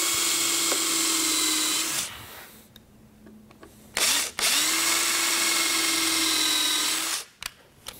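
Electric drill working into the side of a wooden bookcase at screw positions. It runs at a steady speed in two stretches of about three seconds each, spinning up quickly at the start of each, with a short trigger blip between them.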